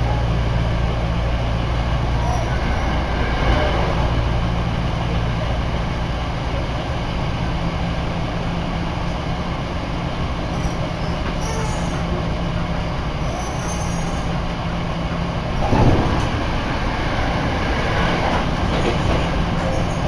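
Running noise of a Hankyu Kyoto Line electric commuter train heard from inside the carriage: a steady rumble of wheels on rails. A low hum is strong for the first five seconds or so, then weakens. Near the end there is a brief louder bump.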